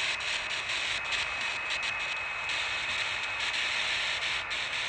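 Steady hiss of static from a smartphone ghost-box app, broken by a few brief dropouts, with a faint high steady tone through the first half.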